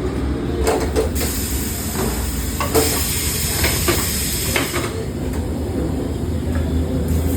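Tyre-shop work noise: sharp metallic clicks and knocks over a steady low hum, with about two seconds of compressed air hissing near the middle.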